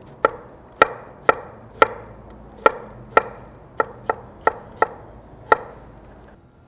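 Chef's knife slicing a red onion on a cherry wood cutting board: about eleven sharp knocks of the blade meeting the board at an uneven pace of roughly two a second, stopping shortly before the end.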